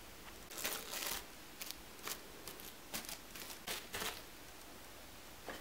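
Soft, scattered rustling and scuffing of toy horse figures and their props being handled and moved, in short bursts for about four seconds.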